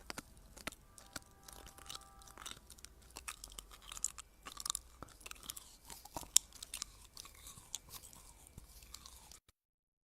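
Close-miked crunchy chewing: a quick run of sharp, irregular crunches and bites, the loudest about six seconds in, cutting off abruptly near the end.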